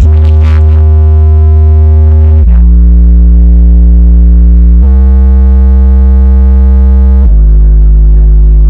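Subwoofer cabinets driven by a mini amplifier, playing a bass test track very loud: deep synth bass notes with a gritty edge, each held about two and a half seconds before stepping to a new pitch, three changes in all. The bass is played to make the woofer cones visibly move.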